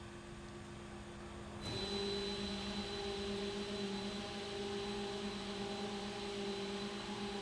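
Biesse Comil Performer TP case clamp running with a steady electric-motor hum; a little under two seconds in a drive starts up, the hum gets louder and slightly higher, and a thin high whine joins it and holds steady.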